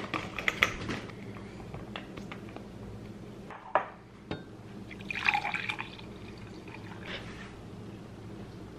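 Coffee poured from a glass carafe into a ceramic mug, a splashing pour of under a second about five seconds in. A few sharp taps come in the first second and a single clink just before the pour.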